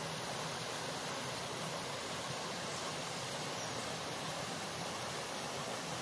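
Shallow stream spilling over the breached masonry of a broken anicut (check dam) and rocks in a small cascade: a steady, even rush of water.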